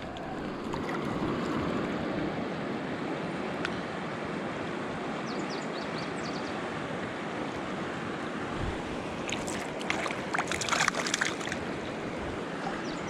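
Creek water rushing steadily past, with a brief flurry of sharp clicks and splashes about ten seconds in.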